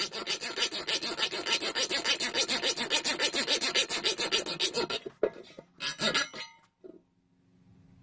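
Fine-toothed side of a thin flat steel survival-card saw rasped rapidly back and forth across the rim of a tin can. It stops about five seconds in, gives a few more strokes, then falls quiet. The blade is barely cutting into the metal.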